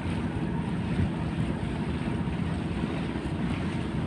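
Wind buffeting the microphone: a steady, low rumbling rush with no distinct tones, heard on a vessel under tow.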